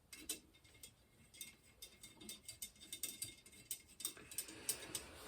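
Faint, irregular light clicks and ticks of bicycle spokes knocking against the hub flange and rim as they are threaded through during wheel lacing.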